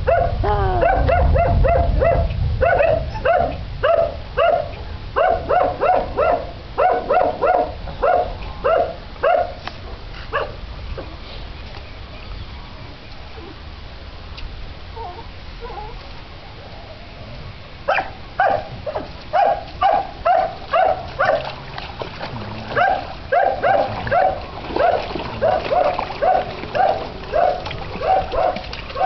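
A dog barking over and over, about two barks a second, in two long runs with a pause of several seconds in the middle.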